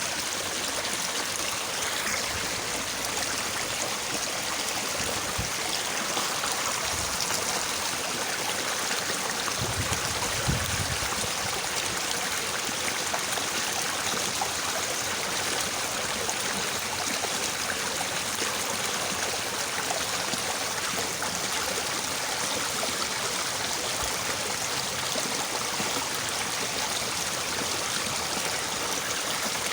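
Small, fairly fast-flowing river babbling and rushing steadily over its bed.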